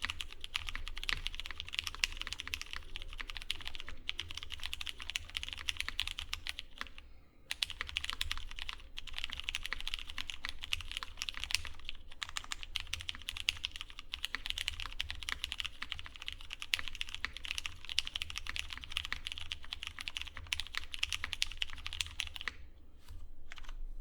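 Fast continuous typing on a Deskdaily Paraluman mechanical keyboard with lubed and filmed Cherry MX Brown switches in an aluminum plate on an o-ring gummy mount, under GMK keycaps. A dense stream of rapid key clacks that breaks off briefly about seven seconds in and again near the end.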